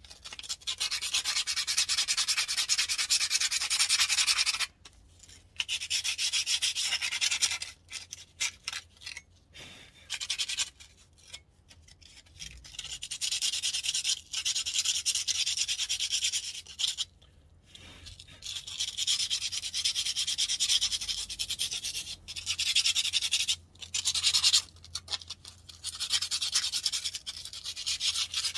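Sandpaper rubbed by hand in quick back-and-forth strokes against a car's front brake disc, a hissy scraping in long runs with short pauses. It is taking rust off the disc surface, rust the mechanic suspects could be the cause of a brake squeak.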